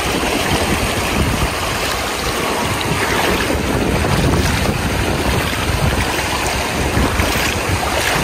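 Shallow, stony river rushing around a hiker's feet as he wades through it in trail-running shoes, with splashing steps. A low rumble of wind buffets the microphone.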